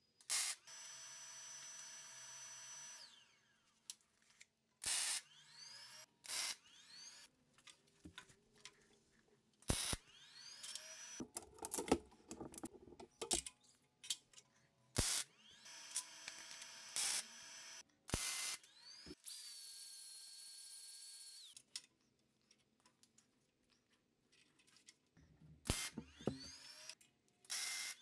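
MIG welder laying short crackling tack welds on a square steel-tube frame, the bursts coming one after another, with a power tool running for a few seconds twice and winding down.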